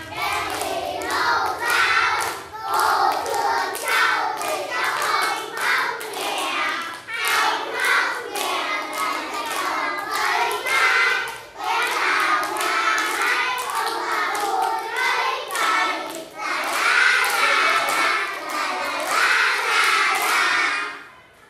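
A group of young children singing a song together, with hand claps through it; the singing dies away just before the end.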